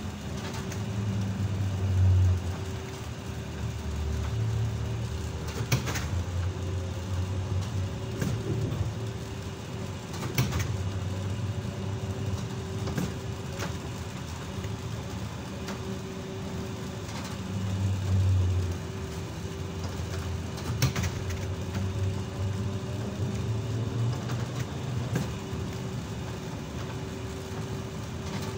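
ZiU-682G trolleybus running on board: a steady hum with one constant tone over a low rumble that swells and eases every few seconds, with sharp knocks and clicks now and then.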